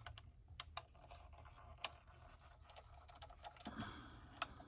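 Faint, scattered light clicks and ticks over near silence, with a brief soft rustle near the end: a small diecast model car being handled.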